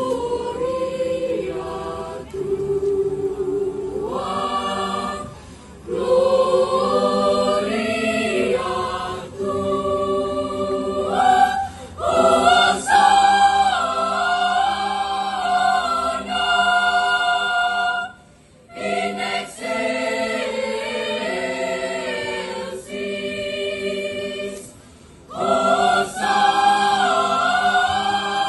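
Mixed youth choir of boys and girls singing in parts, holding chords phrase by phrase with brief pauses between phrases.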